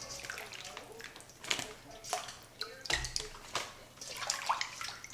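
Apple slices handled in a bowl of lemon water and moved into a plastic freezer bag: irregular splashing and sloshing, with scattered small knocks and clicks.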